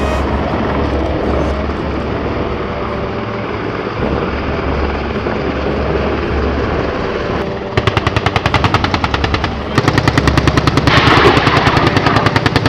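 Steady drone of helicopters flying, then two long bursts of rapid automatic gunfire, the second louder and longer, in the cover fire of an attack-helicopter exercise.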